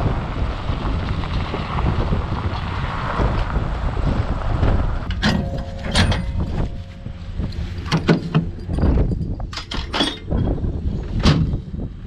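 Pickup truck driving on a gravel road towing a header cart, with wind rushing over the microphone. About five seconds in this gives way to a string of sharp metallic clicks and clanks at the truck's trailer hitch.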